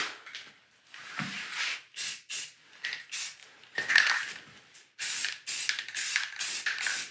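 Aerosol can of flat black spray primer spraying in short bursts for the first few seconds, then in longer, nearly unbroken spells from about five seconds in.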